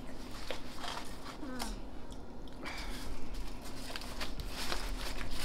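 Crinkling of a foil-lined burger wrapper being unfolded, mixed with chewing and crunching of food, as a run of small irregular crackles. A brief falling vocal sound about a second and a half in.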